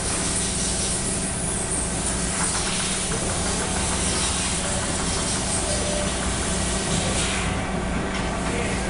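Steady mechanical running noise, an even hiss over a low hum, from the Fastems pallet stacker system and shop machinery.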